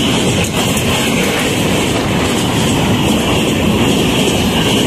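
Coaches of an Indian Railways express train passing close at high speed: a loud, steady rush of wheels on rail and rushing air.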